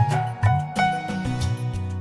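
Background music with a moving bass line and a regular beat.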